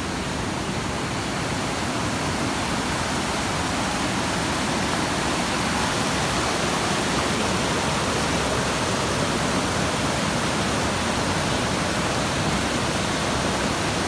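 Waterfall rushing steadily, growing a little louder over the first few seconds.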